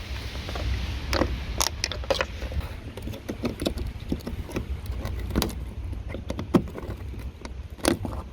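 Flat screwdriver working at the plastic clips of a Renault Megane 2's front bumper: irregular sharp clicks, taps and scrapes of metal on plastic, over a steady low rumble.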